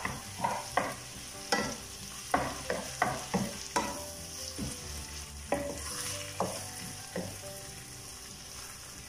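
A spatula stirring and scraping potato, onion and cabbage masala in a wok, knocking irregularly against the pan, thick at first and thinning toward the end, over a steady sizzle from the pan with a little water just added.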